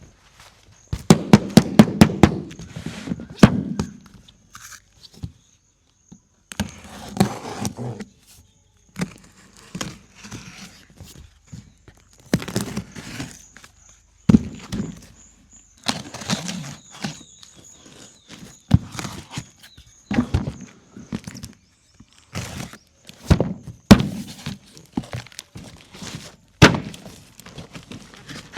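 Toy backhoe loader and toy dump truck being handled: irregular plastic knocks and clattering thunks, with short scraping stretches between them and a faint thin high whine under most of it.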